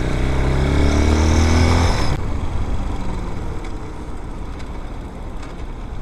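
Air-cooled 250 cc single-cylinder dirt bike engine accelerating, its pitch rising for about two seconds. The throttle then closes suddenly and the bike carries on at a lower, even running sound.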